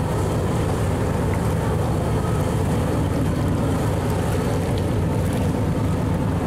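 Fishing boat's engine running steadily: a low, even hum under a hiss of water.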